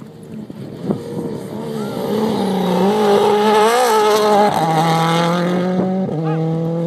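Mini rally car's engine revving hard as it approaches on a dirt track and passes close by, its note wavering with the throttle and loudest about three to four seconds in. Just after it passes the pitch drops, then steps again as it pulls away and fades.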